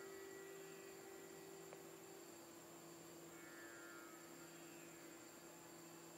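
Very faint, soft background music: one low note held steadily, with faint higher notes fading in and out.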